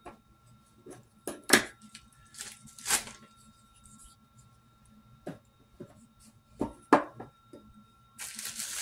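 A paper mailer envelope being torn open and handled: several sharp separate rips and crackles, then a longer, louder burst of tearing and rustling near the end.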